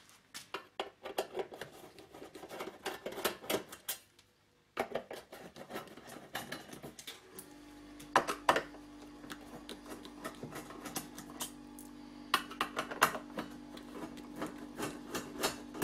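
Screwdriver clicking and scraping on screws as the perforated metal top cover of a Marshall 2550 Silver Jubilee amp head is unscrewed, with irregular small metal taps and rattles. A steady low hum comes in about halfway.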